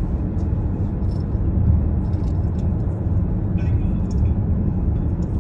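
Steady low road and engine rumble inside a moving car's cabin at highway speed.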